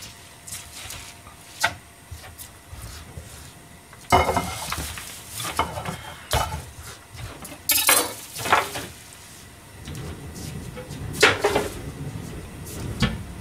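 Kitchen prep clatter: a stainless-steel mesh colander and bowl clink and knock against the counter and cutting board as cut cabbage and greens are scooped into them, in several irregular bursts.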